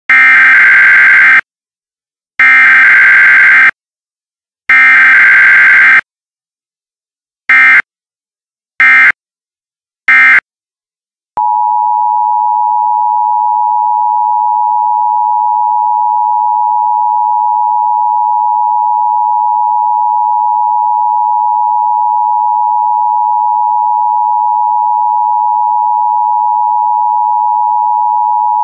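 Emergency Alert System tones: three long bursts of SAME digital data tones about a second apart, then three short bursts. From about eleven seconds in, the steady EAS two-tone attention signal sounds without a break.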